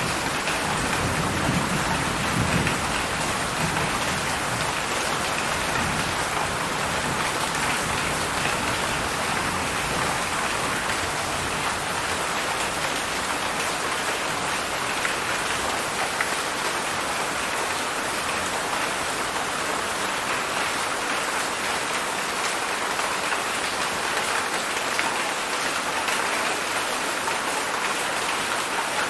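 Heavy rain falling steadily, a dense even hiss of drops on surfaces. A low rumble sits under it for the first few seconds, then fades.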